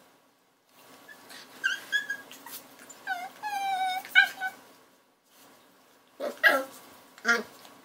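Puppies whining and yipping while they play-fight: a few short high whines about two seconds in, then a longer whine. Two sharper, rougher yips come near the end.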